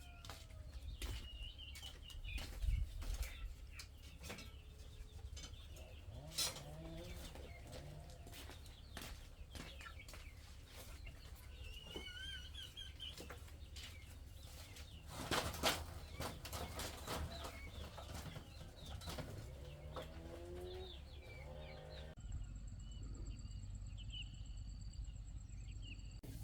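Chickens clucking, with wing flaps and scattered knocks and rustles. About four seconds before the end the sound changes abruptly to a steadier background hum with a thin high tone.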